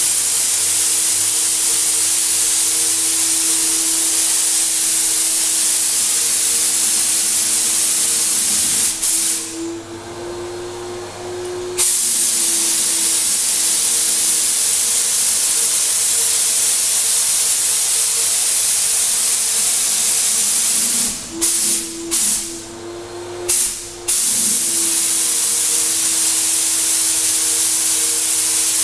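Graco HVLP 9.5 turbine spray outfit spraying: a loud, steady hiss of air and atomised paint from the gun over the steady hum of the turbine. Twice the trigger is released for a couple of seconds and the hiss stops, leaving the turbine's tone, which rises a little in pitch until spraying resumes.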